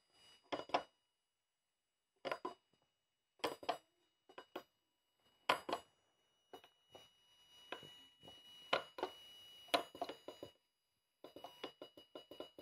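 Irregular sharp clicks and taps from a homemade Arduino-based Geiger counter board as its small push-buttons are pressed. A faint, steady, high-pitched beep from the board's piezo buzzer sounds through the second half.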